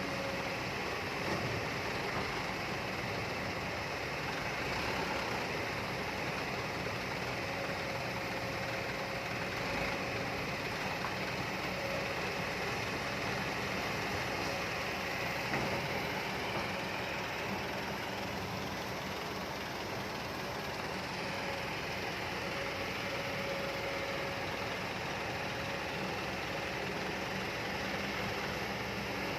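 Kobelco excavator's diesel engine running steadily at a constant level, with a faint steady whine.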